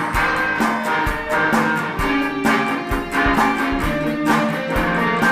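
Instrumental passage of a pop-rock song: guitar over bass and a steady drum beat.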